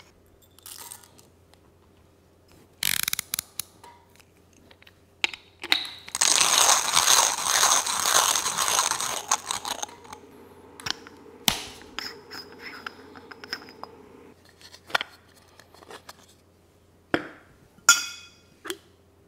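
Hand coffee grinder being cranked, its burrs crushing beans in a loud, gritty grinding stretch of about four seconds, then turning more quietly. Several sharp knocks and taps near the end as the grinder is set down on the counter and its catch cup is handled.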